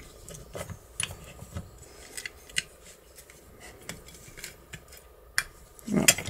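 Scattered light metal clicks and clinks as a loose metal handle is handled and fitted to a steel garage-lock body, with a short low sound near the end.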